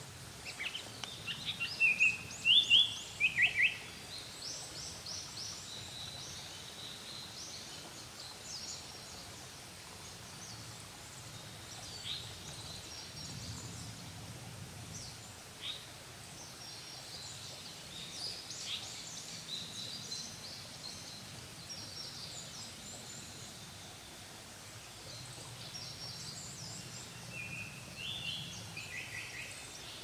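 Birds singing in woodland. The loudest is a run of short whistled notes stepping down in pitch, about a second in and again near the end, typical of a Japanese paradise flycatcher's song. Fainter high chirps carry on between the runs.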